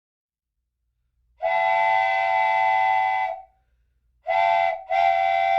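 Train whistle sounding three blasts: a long one, a short one, then another long one. Each holds a steady multi-note chord.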